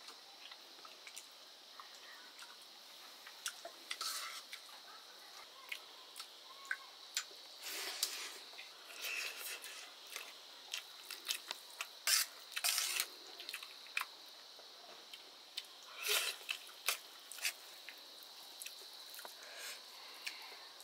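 Close-up eating sounds: wet chewing, lip smacks and squelches from a mouthful of rice and greens, coming in short irregular bursts over a faint steady high tone.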